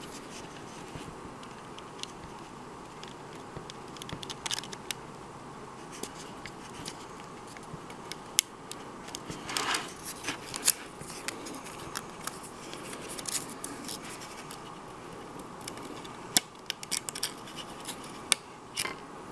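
Small clicks and short scrapes of plastic parts being handled: a flat ribbon cable being worked against its circuit-board connector and the plastic clock case, scattered and irregular, with a few sharper clicks near the end. A faint steady hum lies under it.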